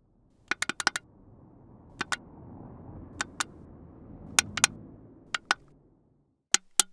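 A run of sharp, irregular clicks and cracks, about a dozen, some in quick pairs: a repetitive 'knick-knack' noise. Under them a low rumble swells and fades over a few seconds in the middle.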